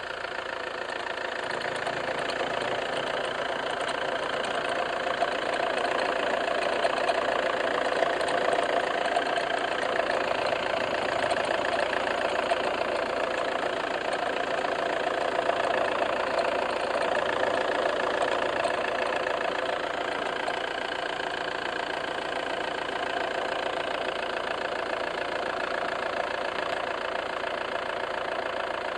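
Fiat Bravo JTD common-rail diesel engine idling steadily, with a strange noise coming from its belt.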